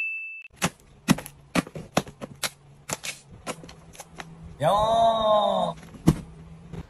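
A quick, irregular run of sharp clicks and taps, several a second. About two-thirds of the way through, a pitched sound lasting about a second swoops up and down.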